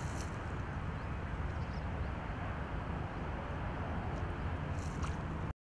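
Steady outdoor background noise with a low rumble, with a few faint brief hisses; it cuts off suddenly near the end.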